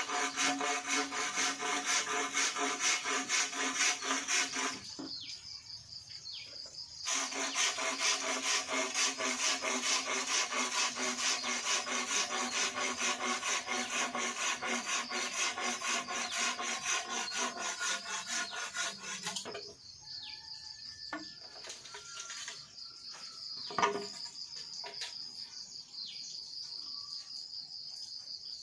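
Rhythmic back-and-forth rasping of a hand tool working a green bamboo pole, about two strokes a second, pausing briefly after about five seconds and stopping about two-thirds of the way through. Insects then buzz steadily, and there is a single knock.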